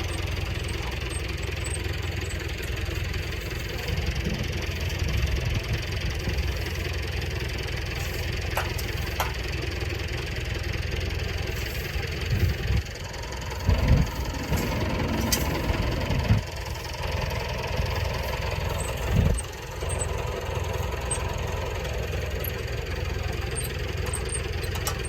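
Farm tractor engine idling steadily, with a few louder low thumps about halfway through and again a little later.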